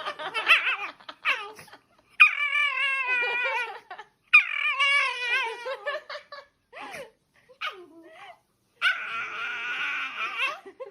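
A dog vocalizing in a string of long, wavering whining calls with short pauses between them, and a rougher, noisier call near the end.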